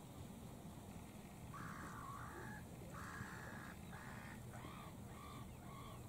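Wild birds calling: three harsh, cawing calls about a second long each, then near the end a quick run of short, repeated higher notes.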